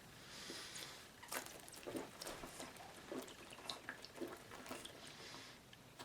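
Faint swallows and small wet clicks of a man drinking malt liquor from a 40-ounce bottle, as scattered short soft sounds over a low hiss.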